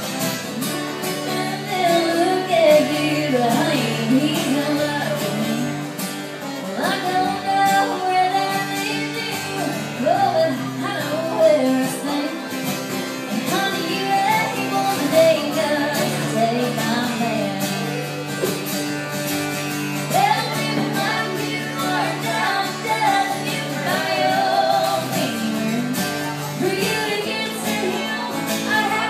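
A woman singing with two acoustic guitars being strummed, a live acoustic duo performance.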